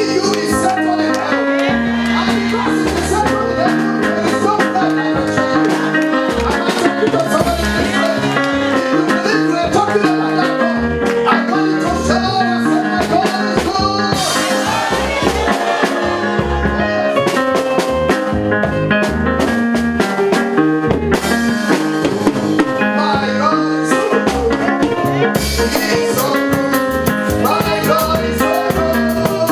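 Live worship band music with drum kit, guitar and bass at a steady beat, with some singing.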